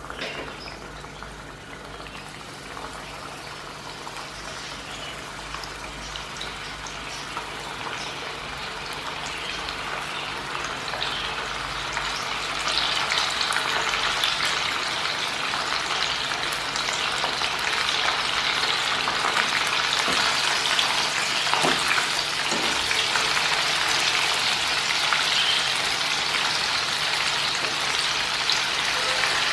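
Flour-coated chicken wings deep-frying in hot oil: a dense sizzle and crackle that grows louder as more pieces go into the oil, then holds steady from about halfway.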